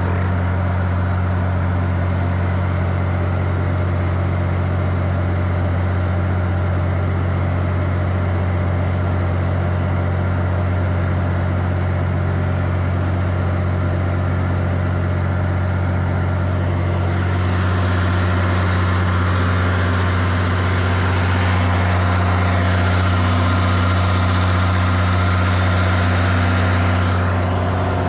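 Tractor engine running at a steady speed, a low even drone. About seventeen seconds in, a high hiss joins it and the sound gets a little louder.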